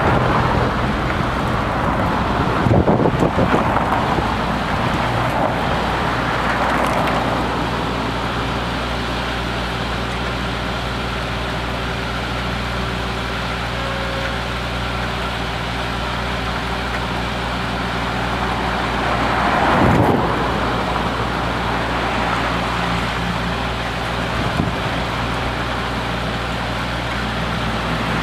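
Road traffic with a steady engine hum throughout. Vehicles pass about three seconds in and again about twenty seconds in.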